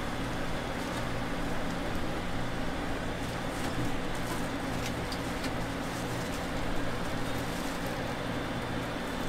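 Steady low background hum and rumble, with a few faint light clicks.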